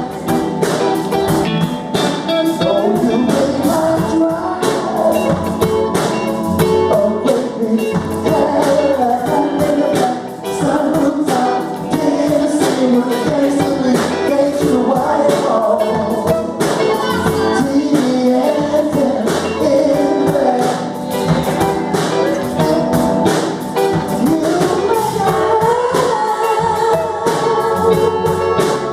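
Music with singing: a vocal song over instruments with a steady beat, typical of 1970s soul or R&B.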